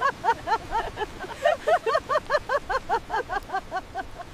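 Women laughing heartily: a rapid run of high 'ha-ha' bursts, about five a second, trailing off near the end.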